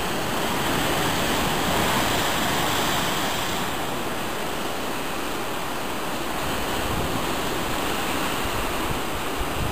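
Sea surf breaking and washing over the boulders of a rocky shore: a steady rushing.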